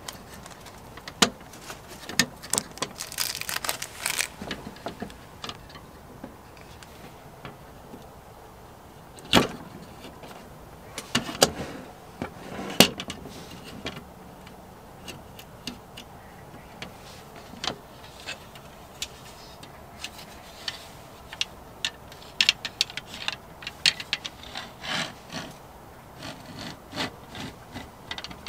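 Folding mini shelf with a stainless steel scissor frame and wooden slats being handled: scattered metal clicks and knocks, rubbing, and a run of small quick ticks near the end as the parts are fitted and the frame is worked.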